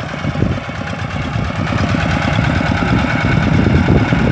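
Kubota single-cylinder diesel engine of a Quick G1000 walk-behind rice-paddy tractor running with a rapid, steady chugging beat. It gets louder about two seconds in.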